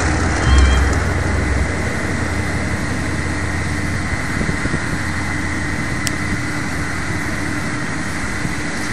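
SNCF X 2400 'Picasso' diesel railcar X2403 pulling away with its engine running. A heavy low rumble eases after about a second and a half, leaving a steady mechanical hum. There is a single sharp click about six seconds in.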